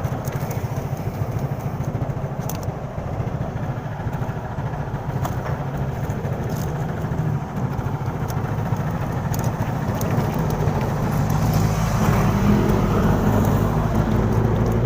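Road traffic: a steady rumble of vehicle engines, with one engine's hum growing louder over the last few seconds.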